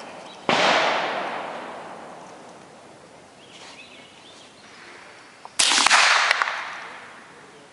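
Gunshots on a shooting range: two loud shots about five seconds apart, each trailing off in a long echo, with a few quicker sharp cracks right after the second. These are plausibly from a Ruger 10/22 semi-automatic .22 LR rifle being fired to zero it.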